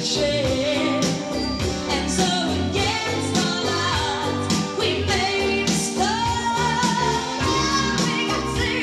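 Live rock band: a woman singing lead over electric guitar and drums, holding a long note in the second half.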